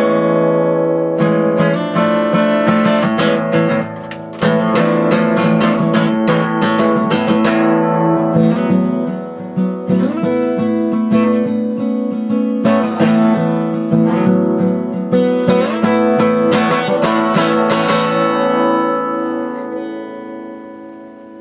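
Acoustic guitar played with a pick, an instrumental of picked notes and strummed chords. Near the end the playing stops and the last chord rings out and fades.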